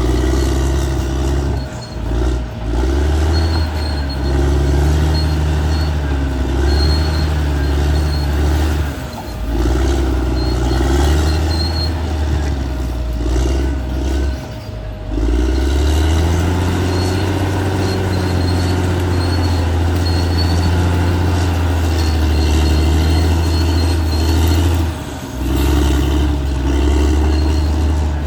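Caterpillar D6R XL bulldozer's diesel engine working under varying load, its pitch rising and falling as it pulls and eases off, with a few brief dips. A faint high squeak comes and goes over the engine.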